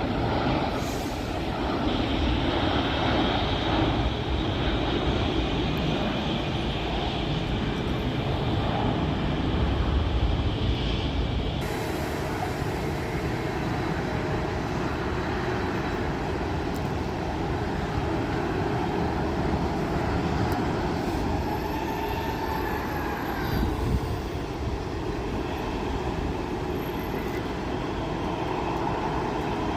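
Jet airliner engines running: a steady rumble with hiss, whose character shifts suddenly about twelve seconds in.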